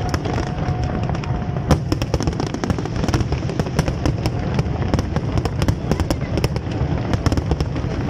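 Aerial fireworks display: many sharp bangs and crackles from bursting shells, densely overlapping above a continuous low rumble of explosions.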